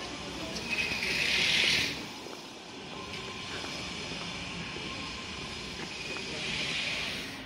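Outdoor street noise with two loud bursts of hissing, each lasting about a second, the first about a second in and the second near the end.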